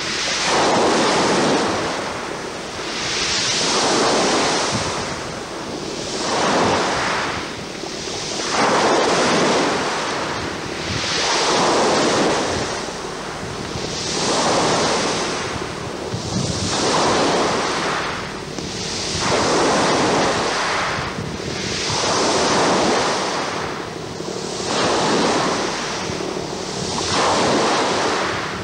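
Sea waves washing in a steady rhythm, a rush of water swelling and falling away about every two and a half seconds.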